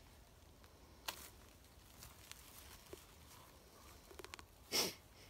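Faint, scattered handling sounds of a wild turkey carcass being skinned by gloved hands: soft clicks and rustling of skin and feathers, with one short louder swish near the end.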